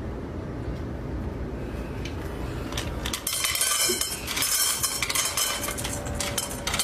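A low rumbling noise, then from about three seconds in a rapid, dense clatter and clinking of hard objects.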